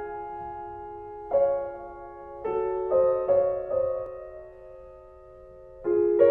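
Slow solo piano music: held chords with single notes added every half second or so. They die away before a louder chord is struck near the end.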